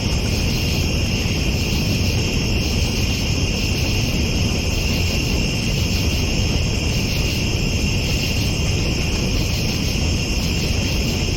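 Steady night chorus of crickets or other insects, a continuous high shrill with a slight pulse, over a constant low rumble.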